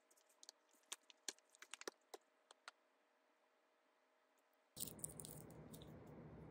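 Near silence with a scatter of faint sharp clicks and taps in the first few seconds, then a steady room hum that comes in abruptly near the end.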